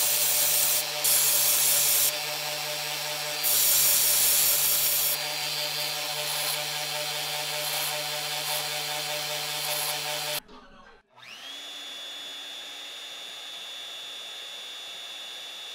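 Benchtop belt sander running with a steady motor hum while a wooden knife handle of yellowheart and ebony scales with steel bolsters is ground on the belt, louder in two stretches while the piece is pressed to it. About ten seconds in it cuts off, and a DeWalt Portaband band saw's motor starts, whines up to speed and runs steadily.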